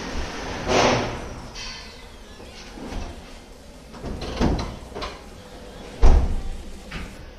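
Hyundai hatchback's driver door opened about a second in, a few light knocks and rustles, then the door shut with a solid thump about six seconds in.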